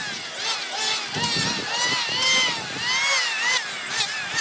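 A power tool working wood, its whine dipping and rising again about once a second as it bites into the wood and is eased off.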